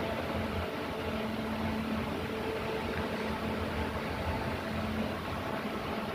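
Steady whoosh of a running electric fan with a faint constant hum.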